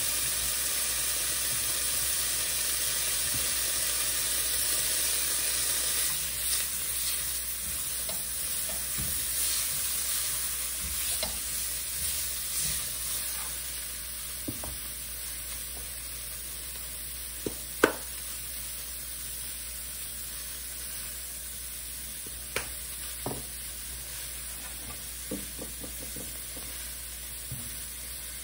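Leeks and cloves sizzling in butter in a metal wok and being stirred with a spatula. The sizzle is louder for the first half and then eases off, with a few sharp taps of the spatula on the pan later on, the loudest about 18 seconds in.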